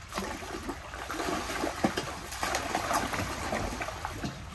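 Water trickling and splashing, with many small irregular splashes and drips.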